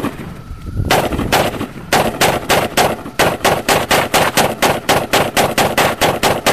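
AK-47 rifle fired in rapid semi-automatic fire, one shot per trigger pull. One shot rings out at the start, then after a pause of about a second a steady string of shots follows, about three a second.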